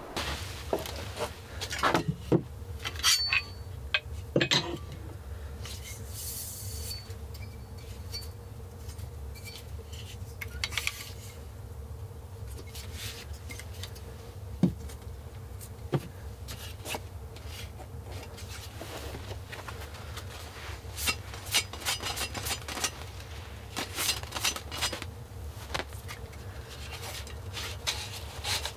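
Handling sounds: scattered clicks, taps and rubbing as a folding pruning saw and other small objects are picked up and set down, over a steady low hum.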